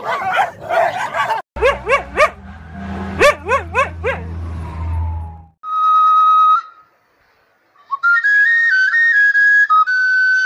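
Dogs fighting, snarling and barking, then several bursts of short rising yelping cries over a low hum. After that comes one held high flute-like note, a brief pause, and a high flute-like melody stepping between a few notes.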